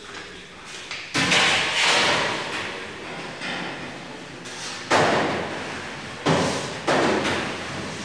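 A large stainless steel plate knocking and clanking against the walls of a stainless steel cheese vat as it is lowered in and pushed into place. There are about six hits, the loudest about a second in and about five seconds in, each ringing away.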